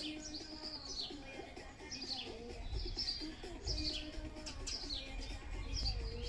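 Garden birds singing: short high chirps that fall in pitch, repeated every second or so, over lower wavering calls.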